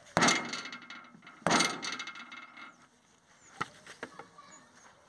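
Two hard metal-on-metal blows on a tractor trolley's wheel hub, about a second and a half apart, each ringing and dying away over about a second, while the hub is being worked loose for a bearing change. A small click follows.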